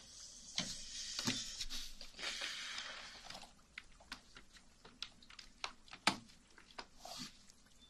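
Hands rustling and tapping close to a sensitive microphone: rustling for about the first three seconds, then scattered soft clicks and taps, the sharpest about six seconds in.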